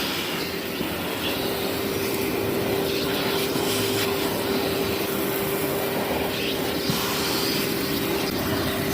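Vacuum cleaner running steadily over a heavily soiled carpet: a loud rush of air under a steady motor whine, with the odd faint crackle of debris being sucked up.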